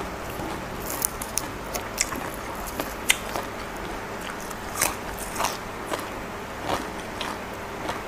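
Close-miked chewing: irregular crisp crunches and wet mouth clicks as a raw green vegetable is bitten and chewed.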